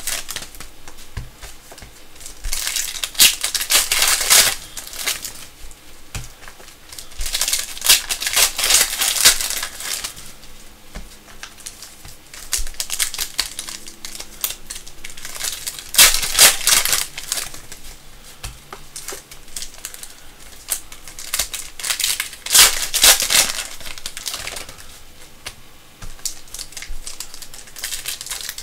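Panini Prizm basketball card pack wrappers crinkling and tearing as packs are torn open by hand, in about five bursts of a second or two each, with quieter rustling between.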